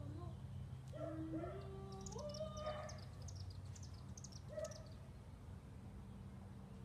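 A voice humming a few notes that climb step by step, with quick high bird chirps over the top and a low steady hum underneath.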